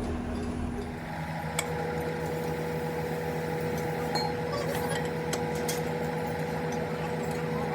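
A machine running with a steady hum, its tone shifting to a new, even pitch about a second in, with scattered light metallic clinks.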